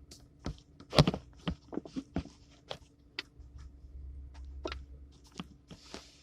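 Finger and neck joints cracking: a series of sharp pops and clicks, the loudest about a second in followed by a quick run of smaller ones, with a low rumble under the second half.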